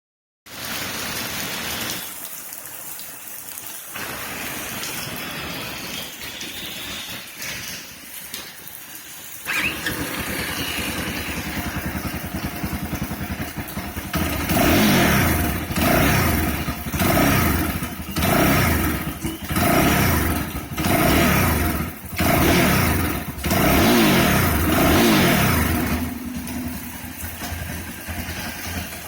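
UM Renegade Commando's 279.5cc single-cylinder, liquid-cooled engine, heard through its exhaust. After several seconds of steady background noise it starts about nine seconds in and idles. It is then revved in about eight short blips, each rising and falling, before settling back to idle near the end.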